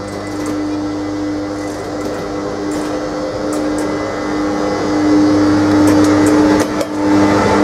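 Class 362 electric locomotive running past close by, its steady electric hum growing louder as it nears. A few sharp clicks of wheels over rail joints come near the end.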